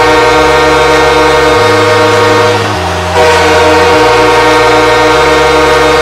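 Arena hockey goal horn blaring in two long blasts, with a short break about three seconds in. A deep bass line steps between notes underneath.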